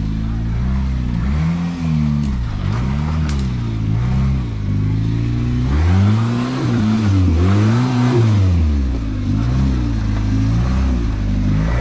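Off-road rock crawler's engine revving up and falling back again and again under bursts of throttle as it climbs, the longest, highest rev about six to eight seconds in. A few sharp knocks come about two to three seconds in.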